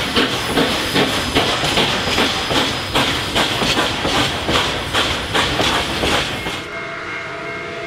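Nickel Plate Road 765, a 2-8-4 Berkshire steam locomotive, working under steam: a steady rhythm of exhaust chuffs about two and a half a second over a hiss of steam. Near the end the chuffing cuts off suddenly, and a quieter steady tone takes its place.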